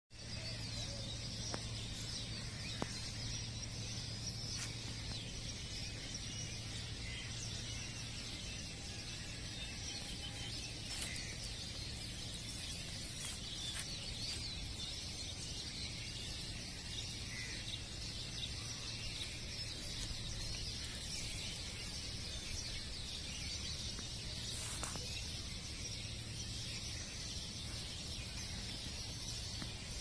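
Dawn chorus: many small birds chirping and twittering continuously, their calls overlapping into a dense high-pitched chatter. A steady low hum runs underneath, with an occasional faint click.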